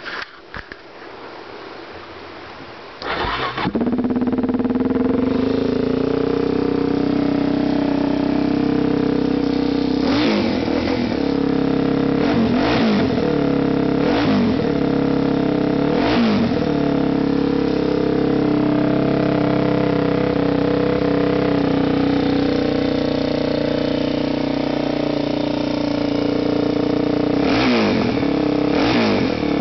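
Suzuki DR-Z400E single-cylinder four-stroke dirt bike engine, stock but with the exhaust baffle removed, catching about three seconds in and settling into a steady idle. The throttle is blipped four times in quick succession around the middle, then twice more near the end, each rev rising and falling quickly.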